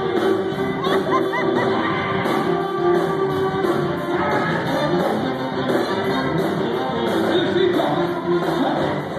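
Live blues band playing: a male singer over drums, electric bass and guitar, with a steady cymbal beat.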